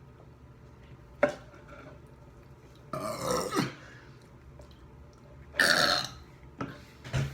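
People burping in turn: two long, loud burps around three and six seconds in, after a short sharp sound about a second in and before a smaller one near the end.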